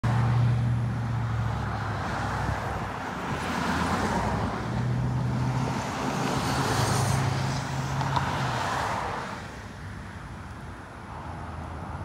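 Road traffic on a multi-lane road: several cars and a truck driving past, tyre noise swelling and fading with each vehicle over a low engine hum. It quietens for the last few seconds.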